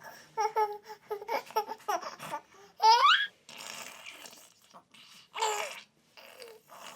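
Young child laughing and babbling: a quick run of short laughing bursts, a loud high rising squeal about three seconds in, then breathier laughs.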